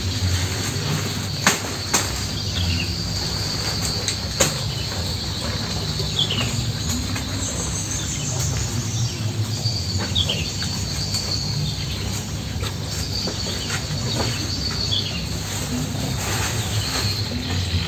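Steady high-pitched insect buzzing over a low rumble, with a few sharp knocks in the first few seconds and short falling chirps every few seconds.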